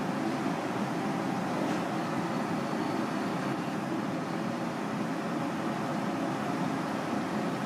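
Steady mechanical background drone with a faint constant hum.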